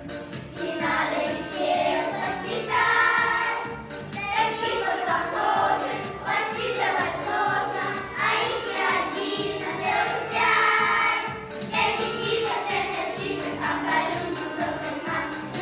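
A group of young children singing a song together in chorus, over a musical accompaniment.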